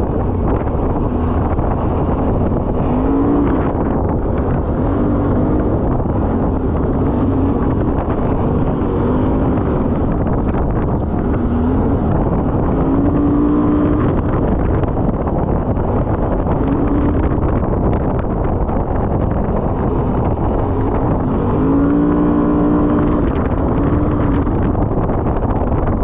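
ATV engine running under way on a gravel trail, its pitch rising and falling several times with the throttle. Wind buffets the microphone throughout.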